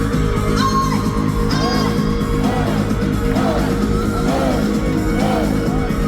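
Live pop-rock band music played loud in an arena, with short shouts and whoops from the audience over it.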